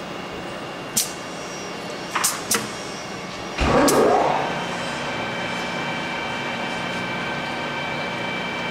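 All-electric benchtop CNC coax bender at work: a few sharp clicks, then about three and a half seconds in a motor spins up with a rising whine and settles into a steady hum with a faint high tone.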